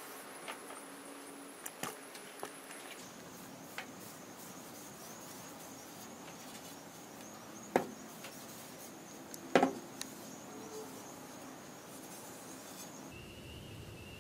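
A wooden canoe paddle being handled and wiped with a rag on a workbench, with a few light clicks and two sharp wooden knocks a little past the middle, the second one the loudest. Under it runs a faint, steady high-pitched tone that jumps to a different pitch twice.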